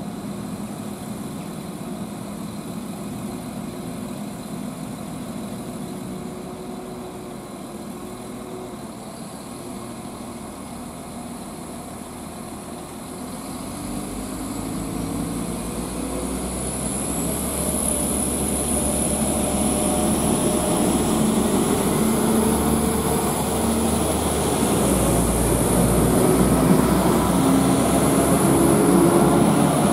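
NIR Class 4000 diesel multiple unit idling at the platform, then pulling away about halfway through. The engine note climbs in steps and grows louder as it accelerates past, with a high whine coming in.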